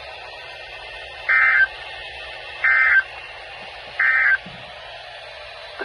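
Three short bursts of Emergency Alert System end-of-message (EOM) data tones: the SAME digital warble that closes an alert broadcast, coming about a second and a half apart over a steady radio hiss.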